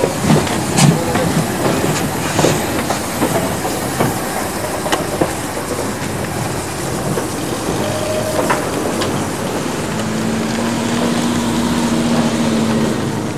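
Steam locomotive moving slowly past on the rails, with sharp clanks and knocks from wheels and rail joints in the first few seconds over a constant rumbling noise. A low steady tone sounds for about three seconds near the end.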